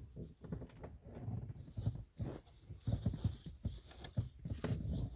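Faint, irregular soft knocks and rustling of handling, with no engine running.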